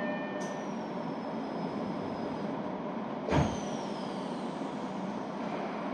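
Inside a stationary electric train: the steady hum of its running equipment, with a short, loud hiss of compressed air about three seconds in.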